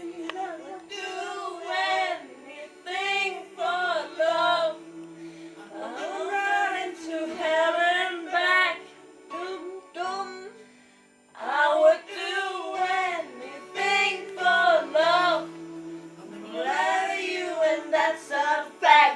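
Young girls singing a song into microphones, in phrases broken by short pauses, over steady backing music.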